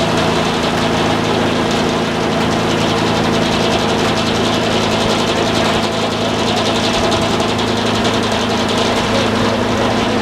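A sawmill's engine running steadily at an even speed.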